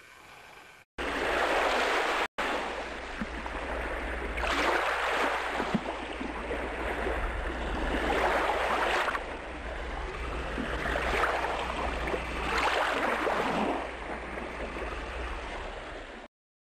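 Water noise of waves washing in, swelling and easing about every three to four seconds over a steady low hum. It starts abruptly about a second in and cuts off sharply near the end.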